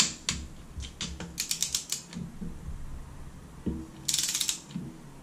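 Torque wrench ratchet clicking in quick runs while tightening internal engine bolts: a sharp click at the start, a run of clicks about a second and a half in, and another about four seconds in.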